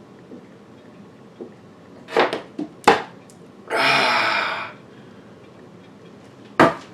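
A few sharp knocks and clicks, like a plastic bottle being handled and set down, then a breathy rush of air lasting about a second, and one more sharp knock near the end.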